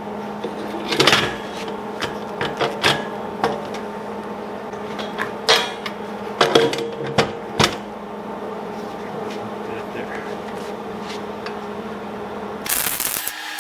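Welding machine humming steadily, with scattered short clicks and knocks of metal being handled. Near the end the hum cuts out and a steady hiss starts as an electric welding arc is struck on the gate hinge.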